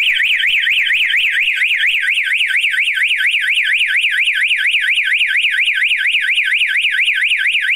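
Small red strobe siren of a photo beam alarm sounding a loud, fast up-and-down warble, about four to five sweeps a second, then cutting off suddenly at the end: the alarm set off by a hand breaking the infrared beam.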